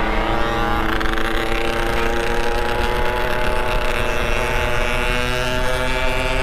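Motorcycle engine running steadily under way, its pitch easing slightly lower over a few seconds.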